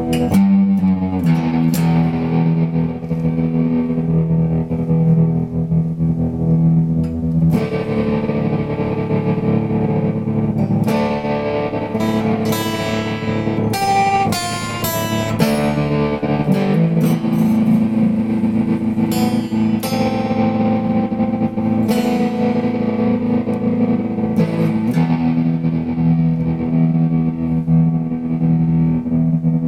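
Electric guitar played through a Montreal Assembly Rand() tremolo pedal, whose random tremolo makes the volume rise and dip unevenly in a glitchy way. Mostly held chords, with a run of quicker picked notes midway.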